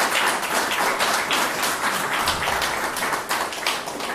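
Audience applauding, many hands clapping at once in a steady wash of claps.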